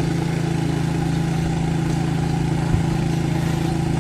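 Boat engine running with a steady low hum that holds an even pitch and level.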